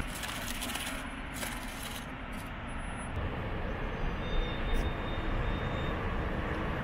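Steady city traffic noise in the open air, an even rumble and hiss, with a few brief crackles in the first two seconds.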